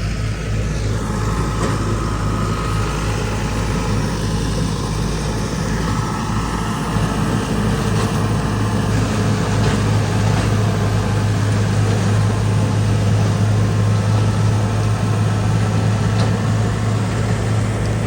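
Tractor engine running steadily under load, driving a wheat-straw chopping machine that turns the harvester's leftover straw into chaff. A strong, steady low drone with a rushing noise on top.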